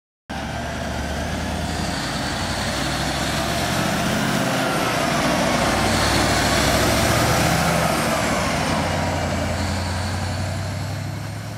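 Sound effects added to an animation: a loud, steady low mechanical rumble with a whine that slowly rises and falls, cutting in suddenly out of silence.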